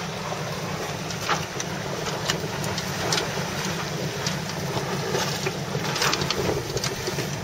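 Steady rushing of wind and water around a sailing yacht's bow, with a few short knocks on deck.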